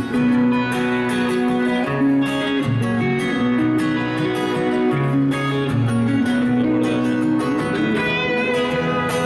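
Background music led by guitar, steady throughout.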